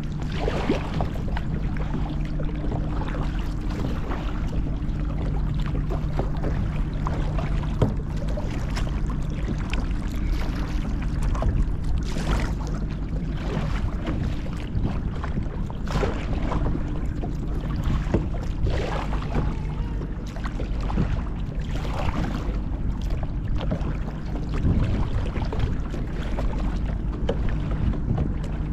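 Double-bladed kayak paddle dipping and splashing into the water in repeated strokes, every couple of seconds, over a steady rumble of wind on the microphone.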